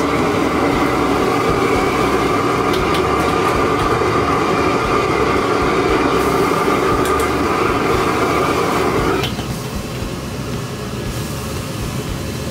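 Restaurant wok burner roaring steadily under a wok, with a few light clinks of a metal ladle against the wok; about nine seconds in the roar drops sharply to a lower level.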